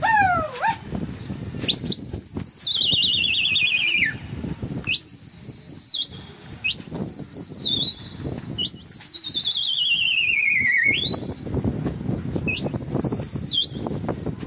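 A person whistling loudly and piercingly to a flock of flying pigeons, five whistles in all. Some are held high and level with a drop at the end; two long ones warble and slide down in pitch, and the last of those swoops back up.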